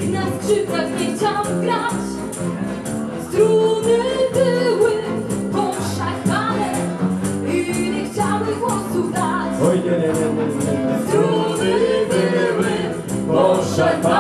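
Live acoustic folk band playing a song: two acoustic guitars strumming, singing, and hand percussion keeping a steady beat.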